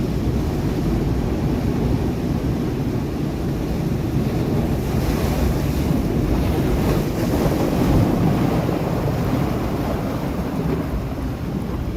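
Sea waves breaking on rocks: a continuous rush of surf that swells into a broader surge around the middle, with wind rumbling on the microphone.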